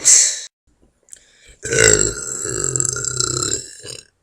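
A short hissing burst, then one long, loud, deliberate burp lasting about two and a half seconds, a low rasping buzz that trails off at the end.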